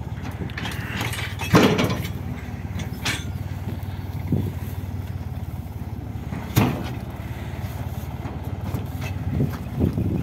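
Hattat farm tractor's diesel engine running steadily while small straw bales are loaded into a metal trailer. A loud thump comes about a second and a half in as a bale lands, and another about six and a half seconds in, with smaller knocks and straw rustling between as the bales are shifted by hand.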